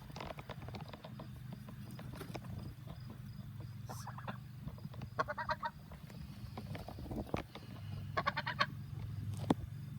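Pet waterfowl giving three short honking calls, about four seconds in, near the middle and near the end, over a steady low hum.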